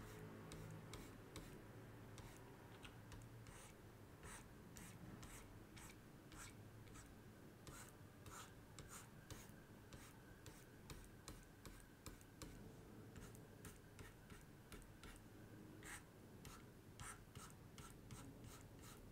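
Faint scratching and tapping of a pen stylus on a graphics tablet during short, repeated brush strokes, a few a second and irregular, over a faint steady hum.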